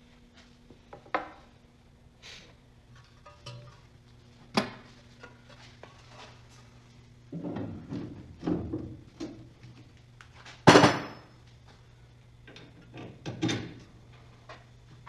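Metal parts and hand tools clinking and knocking in a series of separate strikes, with a sharp clank about eleven seconds in, over a faint steady hum: workshop work on a VW Mk1 Caddy's front brake backing plates and suspension.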